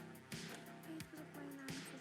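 Electronic background music with a steady kick-drum beat, about one and a half beats a second, under held synth notes.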